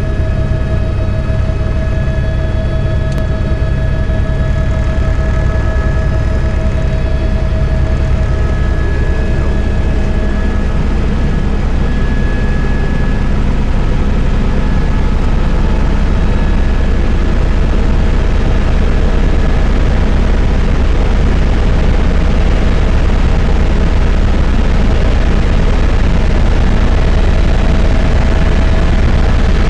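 Helicopter in flight, heard from inside the passenger cabin: a loud, steady drone of rotor and engine with a deep low rumble and a thin, steady whine over it.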